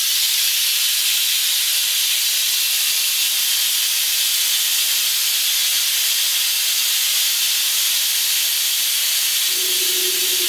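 Air-powered vacuum brake bleeder hissing steadily as it sucks power steering fluid out of the reservoir through a clear tube. A low steady tone joins near the end.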